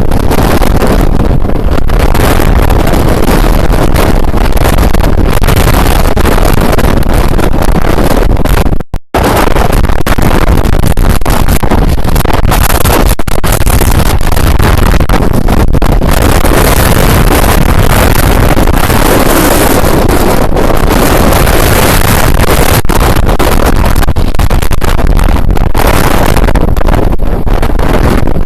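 Typhoon-force wind buffeting the microphone in a loud, continuous rush of noise, probably mixed with heavy surf. The sound cuts out for a split second about nine seconds in.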